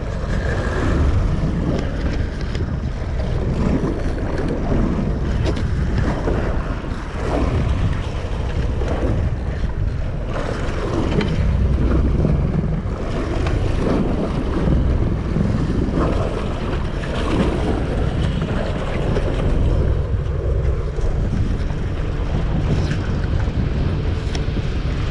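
Wind buffeting the microphone over the wash of open-sea water against a boat's hull, a steady rough rumble.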